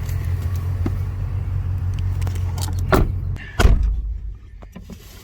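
Steady low rumble of a car, then a thump near the end as a car door shuts, after which the rumble drops away.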